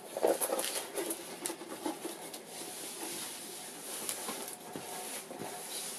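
A large diamond-painting canvas with its plastic cover film being rolled up by hand: irregular rustling and crinkling, with small scuffs and clicks throughout.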